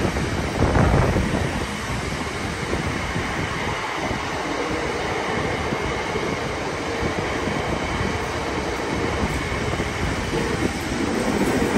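Greater Anglia electric passenger train running through the station without stopping: a steady rush of wheels on rail and passing carriages, close by.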